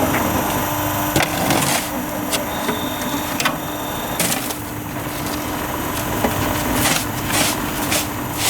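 Hollow concrete block making machine running with a steady hum, with irregular sharp knocks and clatters every second or so.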